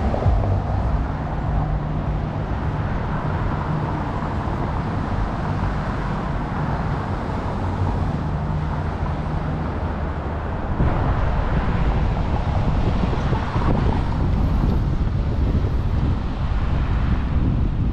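City street traffic: vehicle engines running and cars passing, louder from about eleven seconds in.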